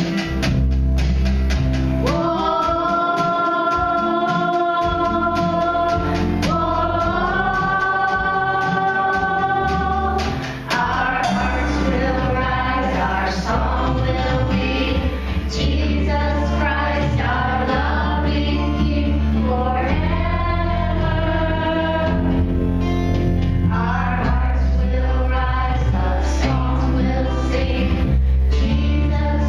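Church choir singing a gospel song over instrumental accompaniment with a strong bass. Long held chords come first, then a moving melody from about ten seconds in.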